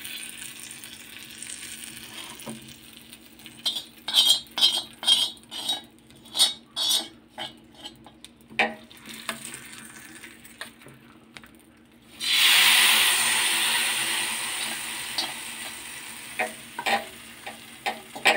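A metal spoon scraping and tapping hot mustard-oil tempering (tadka) off an iron tawa into a steel bowl, about two clicks a second for a few seconds. About twelve seconds in, a sudden loud sizzle of the hot oil that fades over several seconds, then spoon clinks against the steel bowl.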